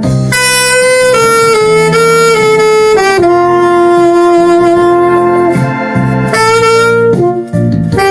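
Alto saxophone played with a plain, unprocessed tone, carrying a slow melody in a few long sustained notes, the longest held for about two and a half seconds in the middle, over a softer accompaniment.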